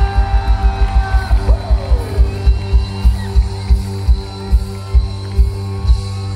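Live rock band playing through a PA: a steady pounding kick-drum beat under guitar and held chords. The drum hits stop near the end, leaving a sustained chord.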